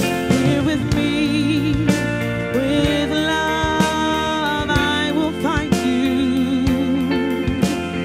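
A live soul-rock band playing: a woman sings long held notes with a wavering vibrato over drums and electric guitar.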